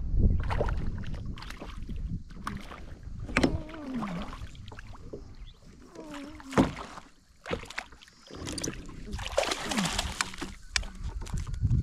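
A hooked catfish being played and landed from a kayak: scattered knocks and clatters of gear against the hull, then a burst of water splashing about nine seconds in as the landing net scoops the fish out of the water.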